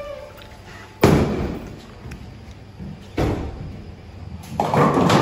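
A bowling ball dropped onto the wooden lane with a loud thud about a second in, the hall ringing after it; a second, softer thud comes about two seconds later, and a louder, noisy clatter near the end.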